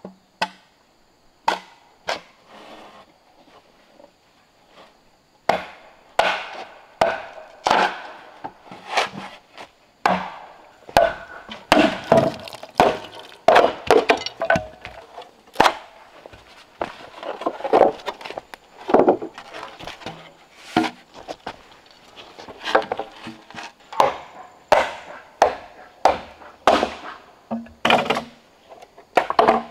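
Repeated chopping blows into wood, likely with an axe or machete. A few scattered strikes come first, then a steady, irregular run of about one to two blows a second.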